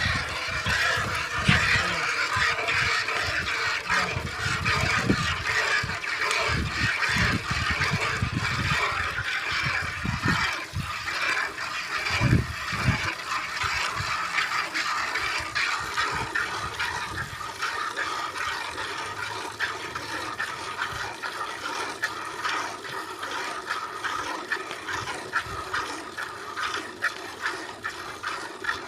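A cow being milked by hand: quick, repeated squirts of milk streaming into a pail, one spurt after another. A few low thumps come in the first half.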